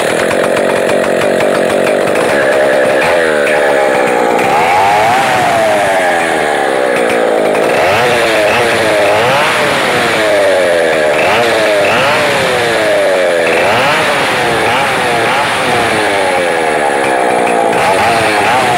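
Two-stroke chainsaw engine running, steady for the first few seconds, then revved up and down over and over, about once every one and a half seconds. It is being run to check whether the reworked automatic chain-oil pump pushes oil out.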